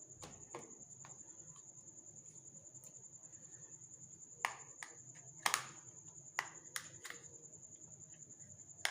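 Scattered sharp clicks and taps of a small plastic keypad mobile phone being handled and its battery and back cover fitted, the loudest a little over halfway in, over a faint steady high-pitched whine.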